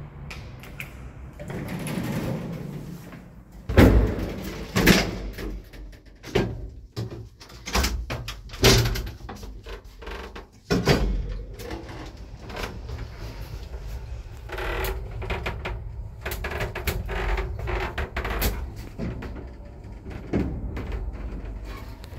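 Late-1980s IFMA traction lift: its doors are worked with a string of loud bangs and clicks in the first half. After that the car travels with a steady hum and a faint held tone, and there is a knock near the end.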